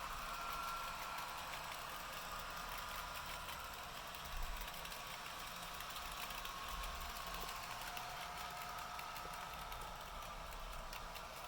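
HO-scale model diesel locomotive running along the track, with a steady motor-and-gear whine that wavers slightly in pitch and light ticking of the wheels over the rail joints.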